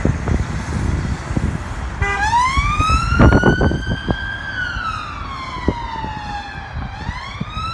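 Police car siren switched on about two seconds in with a short stepped chirp, then a slow wail that rises for about two seconds, falls for about two, and starts rising again near the end. Before it, a low rumble with wind on the microphone.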